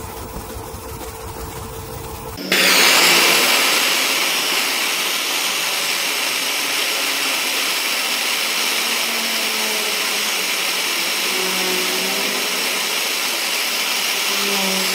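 A small bench lathe motor running with a steady hum as it spins a wire coil in its chuck. About two and a half seconds in, this gives way to the much louder, steady hiss of a gas blowtorch flame.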